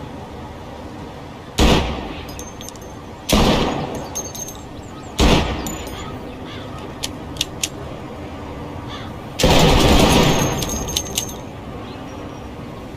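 Pistol fired three single shots roughly two seconds apart, then a denser blast lasting about a second. Small metallic clicks and a faint ringing tinkle fall between the shots.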